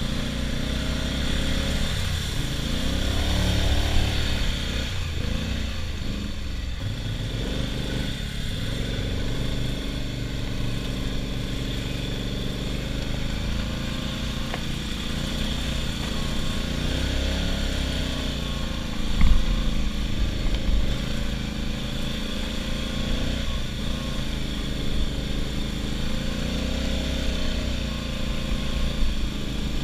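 ATV engine running under load through mud, its revs rising and falling repeatedly, with a loud low thump about nineteen seconds in.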